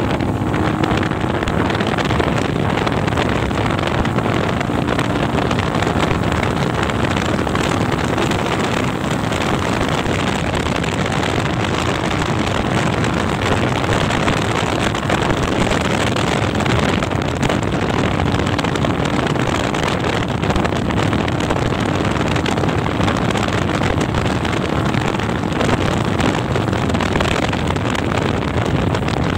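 DTM 150 dirt bike engine running steadily as the bike is ridden at speed, mixed with heavy wind buffeting on the microphone.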